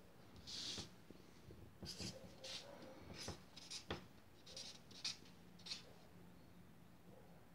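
Marker pen writing on paper: a run of short, faint scratchy strokes as letters are drawn, stopping about six seconds in.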